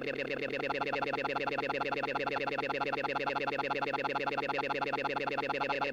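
Heavily effect-processed electronic audio: a dense, synthesizer-like tone stack warbling in rapid, even pulses, with its middle register getting louder about half a second in.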